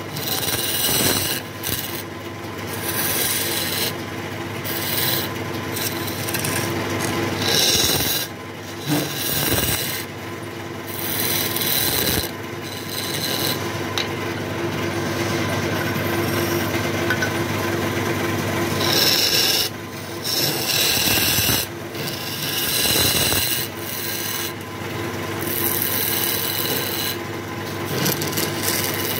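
A hand-held chisel scraping out the inside of a wooden cylinder spinning on a wood lathe: a rasping scrape that stops and starts several times over the lathe's steady hum.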